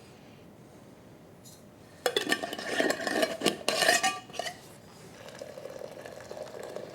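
Teacups, dishes and spoons clinking and clattering for about two seconds, starting about two seconds in, then a fainter steady sound.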